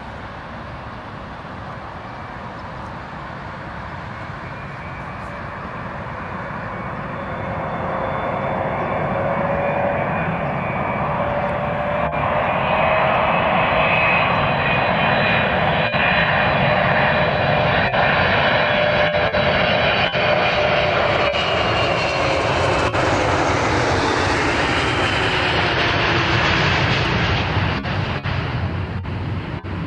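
Boeing 777's twin jet engines on final approach, growing louder as the airliner nears and holding loud for over ten seconds. A high engine whine drops in pitch as it passes, and the sound eases off near the end as it flares over the runway.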